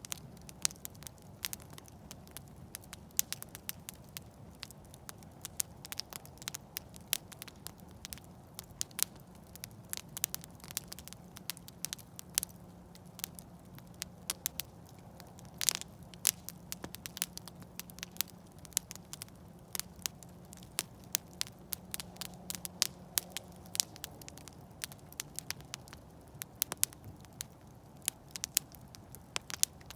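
Campfire burning with irregular sharp pops and snaps of burning wood over a low steady hum, with one louder pop about halfway through.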